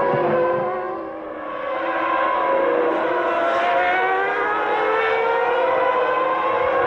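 Formula One car engines running at high revs: several overlapping high-pitched engine notes, each sliding slowly up or down in pitch as the cars accelerate and lift, with a short dip in level about a second in.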